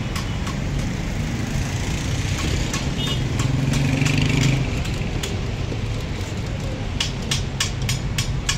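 Steady street traffic rumble, with a motor vehicle passing through the middle. Near the end comes a quick run of sharp metal clicks as a wire fry basket clinks against the rim of a drum fryer.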